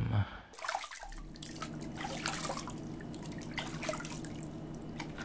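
Water running from a kitchen tap into a sink, starting about a second in, with scattered small clicks and drips over a steady hum.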